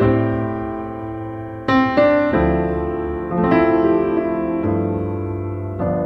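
Background music: slow, gentle piano, with a new chord or note struck about every second and left to ring and fade.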